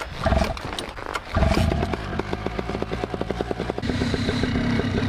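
Paramotor's two-stroke engine starting: a couple of short sputters, then it catches about a second and a half in and runs with a rapid, even firing beat, settling to a steadier idle near the end.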